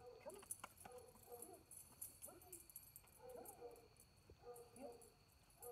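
Faint night-time yard ambience: a steady high drone of insects, with soft clinks of the dog's collar and leash and faint short pitched calls about once a second.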